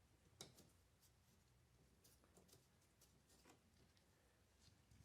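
Near silence with a few faint, scattered clicks: small screws being handled and threaded by hand into the plastic lid of a diesel fuel filter housing.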